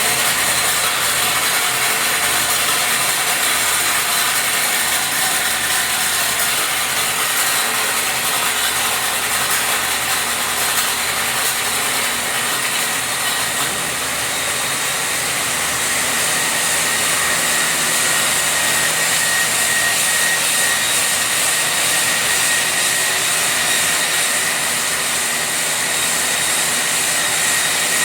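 HF-103DM high-frequency diamond wire saw running steadily as it cuts concrete: a loud, even hiss with a thin high whine that grows clearer after about seven seconds.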